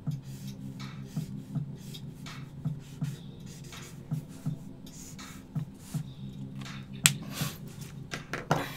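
Blue felt-tip marker swiped back and forth on sketch paper while colouring in, a run of short strokes about twice a second. About seven seconds in comes a sharper click, the loudest sound, as the paper is handled and shifted on the mat.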